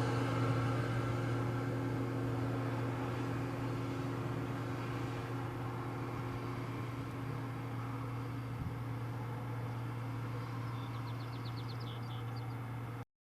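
Steady low hum of an idling vehicle, even throughout, starting abruptly and cutting off suddenly near the end.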